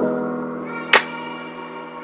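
Background music: held chords with a sharp hit at the start and again about a second in.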